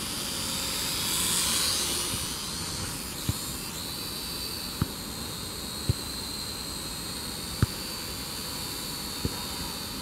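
Quadcopter drone flying overhead, its propellers giving a high whine that swells about a second in and then holds steady. Five short clicks come at irregular intervals over it.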